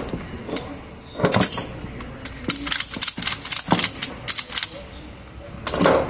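Ratchet strap being worked by hand: irregular clusters of sharp clicks and metal clinks from the ratchet buckle and hooks as the strap is pulled.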